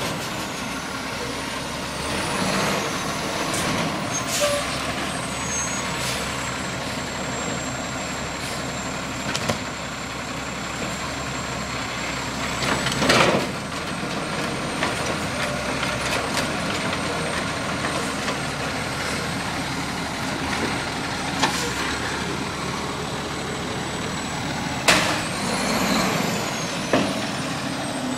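Diesel engine of a garbage truck running steadily as the truck stops at the curb and its lift arm empties a yard-waste cart, with a loud burst of air hiss about halfway through and a few sharp bangs near the end.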